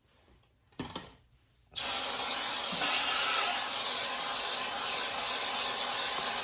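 A steady, even hiss of spray lasting about five seconds. It starts suddenly a little under two seconds in and stops just at the end, after a short knock about a second in.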